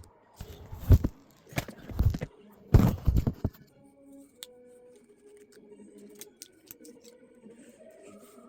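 Handling noise from phone repair work: several loud knocks and rustles in the first few seconds, then only a few faint small clicks.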